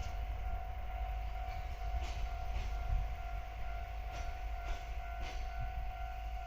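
DE10 diesel-hydraulic locomotive running along the track: a steady low rumble with a steady high tone over it. A few short clicks, about half a second apart, come in bursts from about two seconds in, typical of wheels crossing rail joints.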